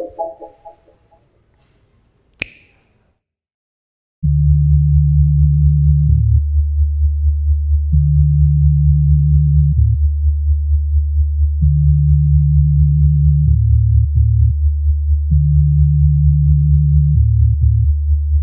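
Low electronic synthesizer drone of pure, sine-like tones that sets in after a brief silence about four seconds in and pulses steadily in level, its upper note shifting now and then. Before it, a fading note and a single click about two seconds in.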